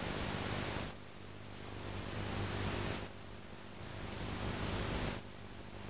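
Steady hiss and low mains hum of an old VHS off-air recording with no programme sound, the noise dropping back and swelling again every two seconds or so.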